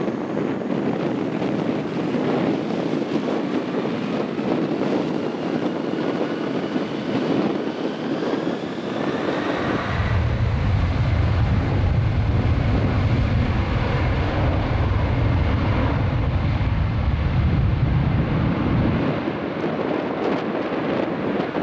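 Four turbofan engines of a Boeing 747-400 freighter run up to takeoff power, with a whine that rises in pitch over the first several seconds. From about halfway in a deep, loud rumble takes over as the thrust comes up for the takeoff roll, then eases near the end as the jet rolls away down the runway.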